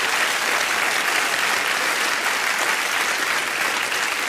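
Studio audience applauding, a steady even clapping that eases slightly near the end.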